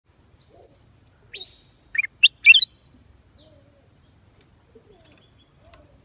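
Black-crested bulbul singing one short phrase of quick whistled notes, a little over a second long, starting just over a second in.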